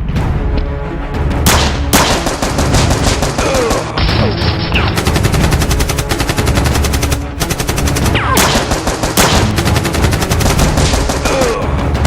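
Rapid automatic gunfire sound effects in long bursts with a brief pause midway, over background action music.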